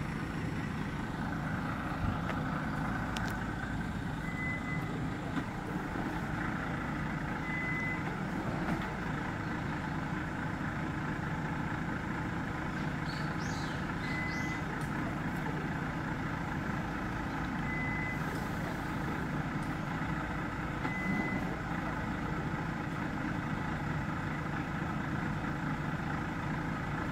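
Diesel engine of a crane truck idling steadily, with a short high beep sounding now and then, five in all, a few seconds apart.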